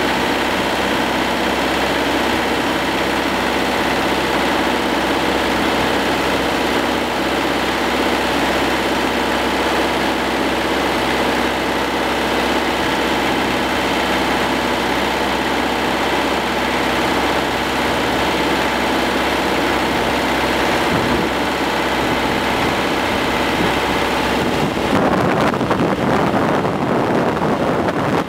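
Hürlimann D70 tractor's diesel engine running steadily while driving along a road. About 25 seconds in, the even engine hum gives way to rushing wind noise on the microphone.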